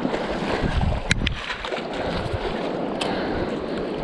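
Shallow mountain creek running over stones around the angler's legs, with wind rumbling on the microphone. Two brief clicks, about a second in and near the end.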